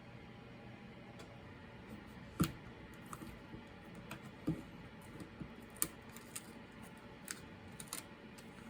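Irregular clicks and taps of hard plastic laptop parts being handled during a teardown, with louder knocks about two and a half, four and a half and six seconds in.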